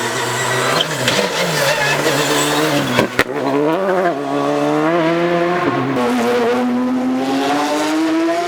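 Rally car engine at full stage pace: the note dips and rises several times as the driver lifts and gets back on the throttle, with one sharp crack about three seconds in. Near the end it pulls in one long, steady rise in pitch.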